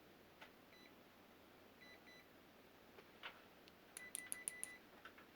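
Faint electronic beeps from a microwave oven's control panel as its buttons are pressed. There is a short beep about a second in, two more near two seconds, and a quick run of beeps with clicks near the end.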